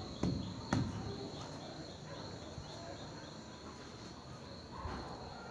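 Crickets chirping steadily in a high, thin tone, with one sharp click just under a second in.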